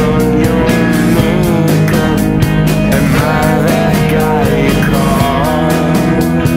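Indie rock band recording: electric guitars over drums keeping a steady beat.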